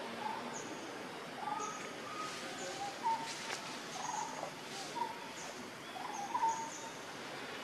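Forest ambience of birds calling: short, high, falling chirps repeating about once a second, with lower short calls scattered between them over a steady background hiss.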